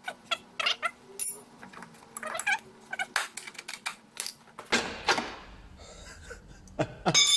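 Metal parts and tools clicking, knocking and squeaking as the old gearbox mount is worked free from the car. Near the end a metal piece strikes with a loud clang that keeps ringing.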